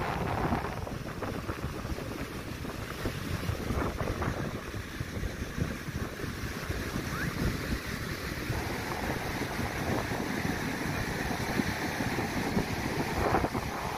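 Wind buffeting the microphone in an uneven low rumble, over the steady wash of ocean surf breaking on the shore.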